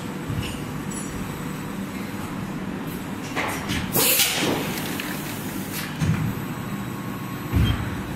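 Injection moulding machine running with a steady hum, a loud hiss of compressed air about four seconds in lasting about half a second, and two dull thumps near the end.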